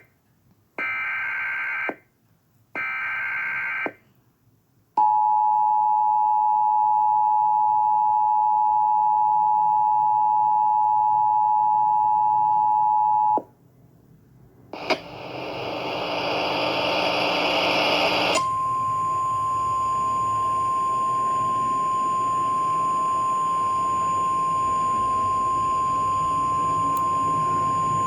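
Emergency Alert System activation: the last two bursts of the digital header's harsh data tones, then the loud two-tone attention signal held for about eight seconds. After a short pause and a click, radio static rises, and a steady single-pitch NOAA Weather Radio warning tone sounds over the hiss.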